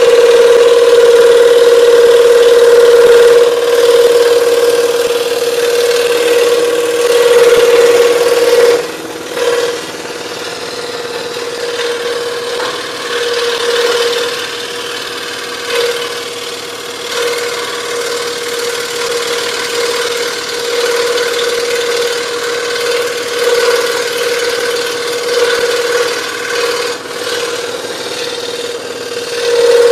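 DeWalt DW788 scroll saw running, its blade cutting a pattern in quarter-inch Baltic birch plywood, with a steady mechanical hum. It is louder for the first several seconds, then a little quieter, swelling and dipping as the cut goes on.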